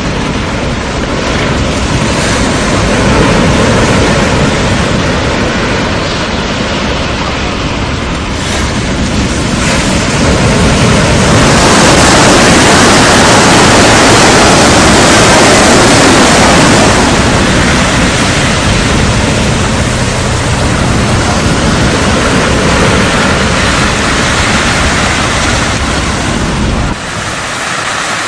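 Surf breaking and rushing on a beach in strong wind, with wind buffeting the microphone. The roar swells louder for several seconds in the middle, then eases back a little.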